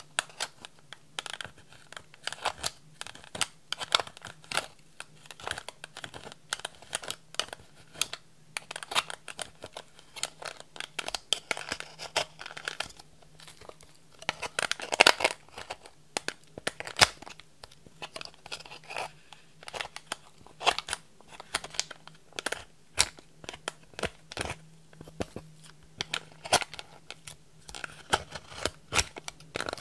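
Thin metal tool scraping and digging pressed highlighter powder out of a plastic compact: an irregular run of crumbly scratching and sharp clicks as the tool catches the pan edge.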